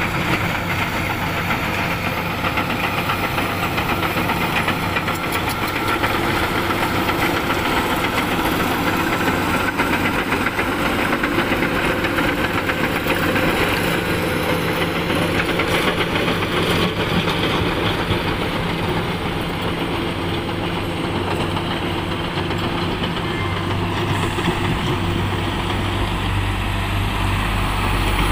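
Crawler bulldozer's diesel engine running steadily under load while it pushes soil with its blade, with the steel tracks clattering. A deeper low rumble strengthens near the end.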